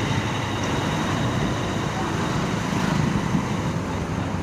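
Steady road and wind noise from a scooter ride in traffic, a fairly even rushing sound with no sharp events.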